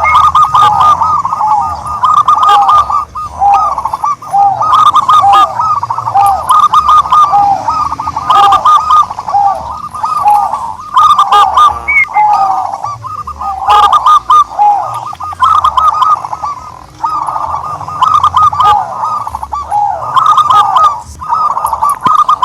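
Dove calling: a continuous run of short, quick rising-and-falling notes repeated several times a second, with brief gaps.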